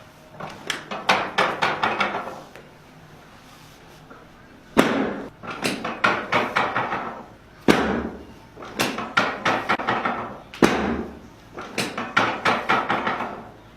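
Chiropractic adjustment on a treatment table: a cluster of clicks, then three sharp bangs about three seconds apart, each followed by a quick run of lighter knocks.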